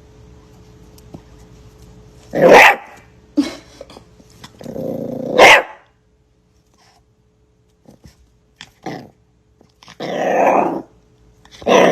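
A dog growling and barking in several short, loud outbursts, the loudest about two and a half and five and a half seconds in.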